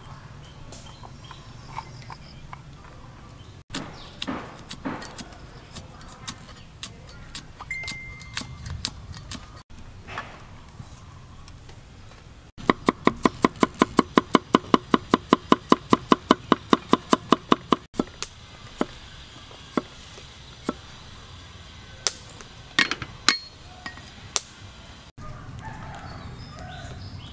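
Cleaver chopping on a wooden chopping board: scattered single knocks of the blade, then a run of fast, even chops, about seven a second for some five seconds in the middle, as garlic is minced.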